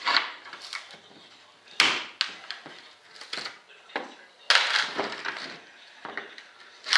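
Mold pieces for a model-jet part being twisted, pried and set down on a wooden workbench: irregular knocks and clicks, with a longer scrape about four and a half seconds in.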